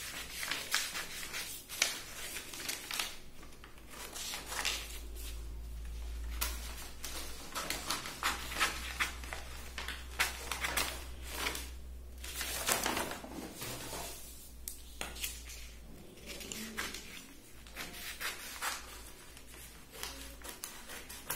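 Large tailoring scissors cutting through stiff paper: a run of irregular crisp snips and crunches, with the paper rustling as the sheet is turned.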